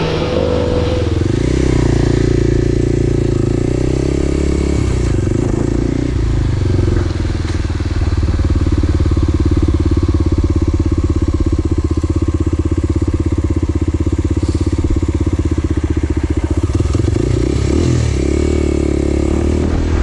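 Motor vehicle engine running steadily, its pitch shifting up and down in the first two seconds and again near the end.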